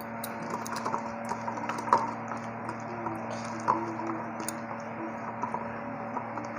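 A hand kneading an oiled paste of ground coconut and shrimp in a stainless steel bowl: irregular small clicks and squishes of fingers working the paste against the steel, over a faint steady hum.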